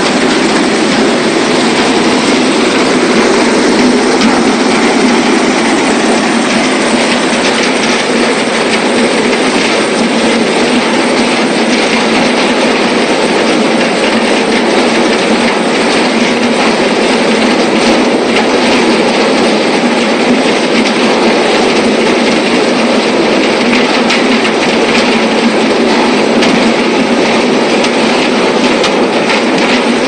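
Large chain-plate-fed wood chipper running and chipping logs: a loud, steady machine noise with a dense clatter of small clicks and knocks as the wood is broken up.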